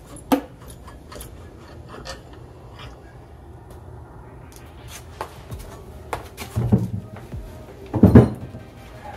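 Clinks and clunks from the aluminium cylinder head of a Porsche 944 engine as it is lifted off the block and handled, with two heavy thumps near the end as it is set down.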